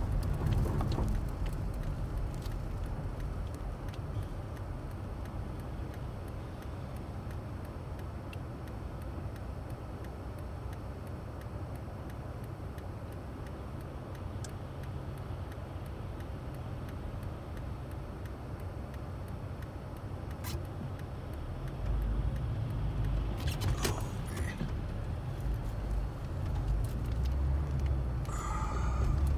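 Car driving on an icy road, heard from inside the cabin: a steady low rumble of engine and tyres that grows louder about two-thirds of the way in and again near the end. A short wavering squeal comes just before the end.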